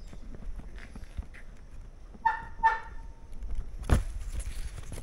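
Two short pitched animal calls about half a second apart, followed a little over a second later by a thump.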